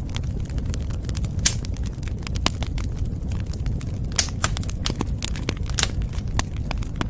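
Wood fire crackling, with irregular sharp pops over a steady low rumble of the flames.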